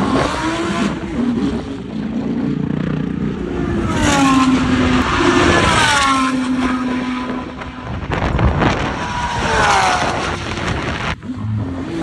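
GT3 race car engines running loud, with steady held engine notes and engine sounds falling in pitch as cars go by, around four to six seconds in and again near ten seconds.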